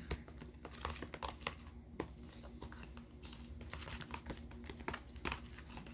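Spoon stirring a thick dish-soap mixture in a plastic container: irregular small clicks and scrapes of the spoon against the plastic.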